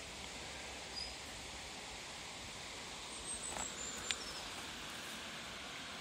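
Outdoor ambience: a steady background hiss with a few faint, short bird chirps, one about a second in and a couple more around three to four seconds in, and a single sharp tick just after four seconds.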